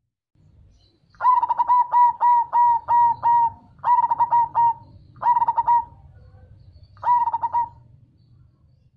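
Perkutut (zebra dove) cooing its song: a quick run of about eight clipped coo notes, then three shorter bursts of notes with brief pauses between them.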